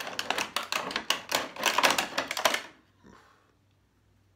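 Stiff clear plastic blister packaging crackling and clicking as a toy dinosaur and its tail are pulled out of it: a dense run of sharp clicks that stops about two and a half seconds in.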